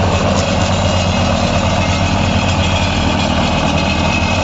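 Swaraj 855 tractor's three-cylinder diesel engine running steadily under load at about 1600 rpm, driving a 7-foot Shaktiman rotavator through heavy, sticky black clay.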